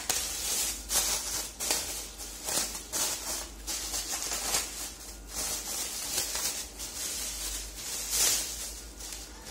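Clear plastic bag crinkling and rustling in irregular bursts as it is handled and pulled off a monitor's round plastic stand base, loudest about eight seconds in.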